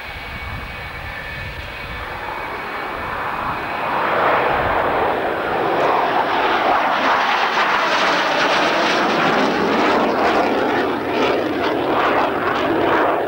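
Dassault Mirage jet fighter's single SNECMA Atar turbojet roaring as the aircraft passes low overhead. The roar builds over the first few seconds and stays loud and crackling, with the pitch sliding down as the jet goes by.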